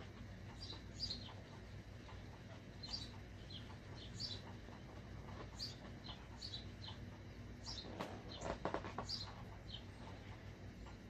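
Sharpie marker rubbing on a rubber balloon, a burst of rapid squeaky strokes about eight seconds in. Short high chirps come every second or so throughout.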